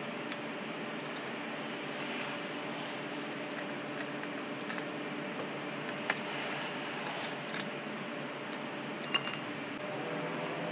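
Scattered metallic clicks and clinks from a wheel wrench working the wheel nuts during a flat-tyre change, with a louder ringing clink of metal about nine seconds in. A steady low hum runs underneath.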